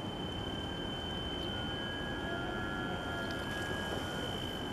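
Steady outdoor harbourside background noise with a thin, steady high-pitched tone throughout. Two fainter, lower steady tones join it in the middle.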